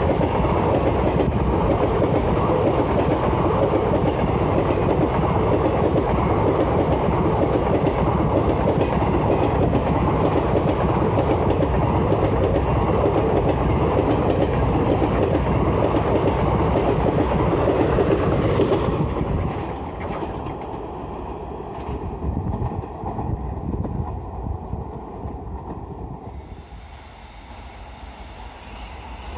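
Passenger train coaches running past close at speed, a loud, steady rumble and clatter of wheels on the rails. About two-thirds of the way through the noise drops away as the rake moves off, and it is much quieter near the end.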